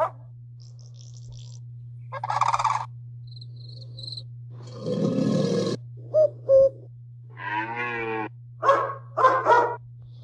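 A string of short recorded animal calls played one after another, with a steady low hum underneath. About six seconds in comes a cuckoo's two-note call.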